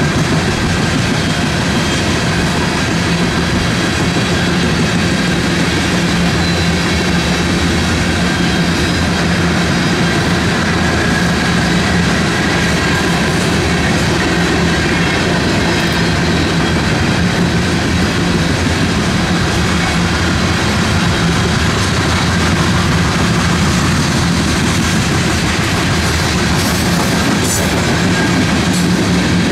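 A freight train's cars rolling past, a loud steady noise of wheels on rail that runs on without a break.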